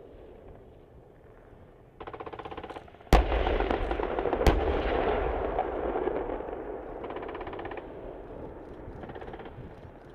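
M1A2 Abrams tanks firing from a distance: a rapid machine-gun burst, then two heavy blasts from the 120 mm main guns about a second and a half apart, followed by a long rolling rumble. Two more short machine-gun bursts come near the end.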